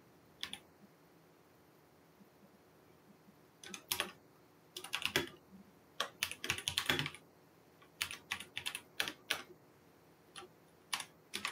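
Typing on a computer keyboard: a couple of keystrokes, a pause of about three seconds, then several quick bursts of keystrokes.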